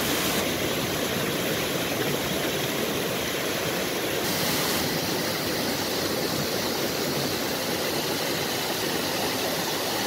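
Stream water falling over a chain of small waterfalls into rock pools, a steady even noise.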